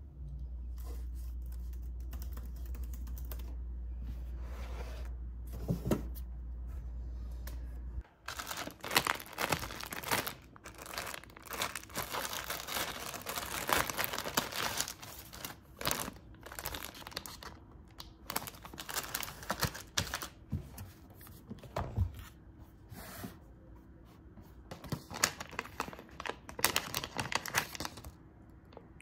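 A steady low hum that cuts off suddenly about eight seconds in, then close crinkling and tearing with many scattered clicks, as of things being handled and torn open.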